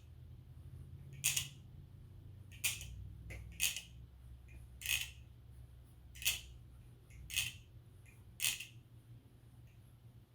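BBFirefly aluminium balisong being flipped: its handles click sharply about once a second, seven times, over a low steady hum.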